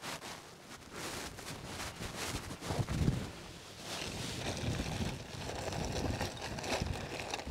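Wind gusting over the microphone outdoors, with low buffeting swells and rustling.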